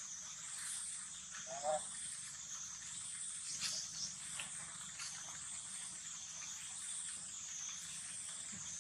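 A steady high-pitched insect chorus in the background, swelling and fading about once a second. A short pitched call sounds about two seconds in, and a few soft clicks follow a couple of seconds later.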